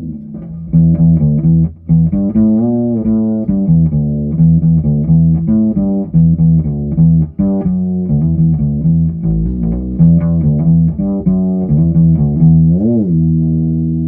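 Ibanez SRH505F fretless five-string bass played with its tone knob rolled back to about halfway: a run of plucked notes with slides and vibrato. Near the end a note slides up and back down, then rings on.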